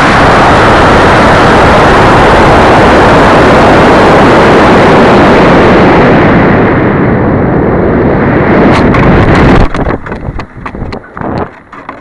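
Onboard view of a model rocket's climb on an AeroTech F50-6T motor: a loud, dense roar of motor and rushing air over the tiny camera's microphone, its hiss fading after about six seconds as the rocket slows. A sharp crack comes a little before nine seconds in, and about a second later the roar drops away into uneven wind buffeting the microphone.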